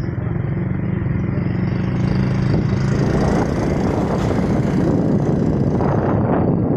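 An engine running steadily, with a rushing noise that grows louder from about two seconds in.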